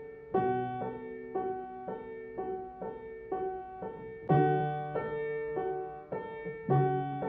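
Background piano music: a slow, repeating pattern of single notes, with a deeper, louder chord struck twice.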